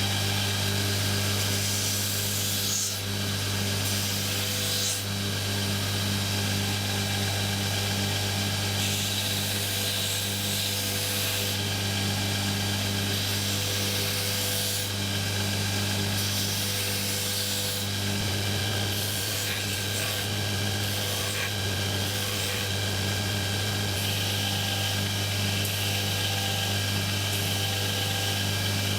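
Electric power tool running steadily with a low motor hum and a rubbing, grinding noise from the work held against it.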